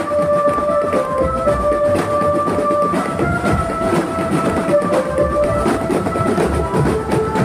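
Marching drum band playing: a dense beat of snare, tenor and bass drums under a held, stepwise melody line.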